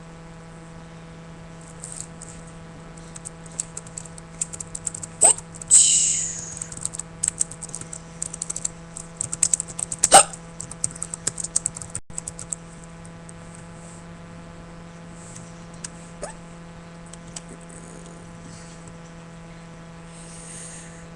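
A person hiccupping: three short, sharp hiccups about five seconds apart, the middle one loudest. Between them comes a rapid patter of computer keyboard typing, with a brief hiss just after the first hiccup.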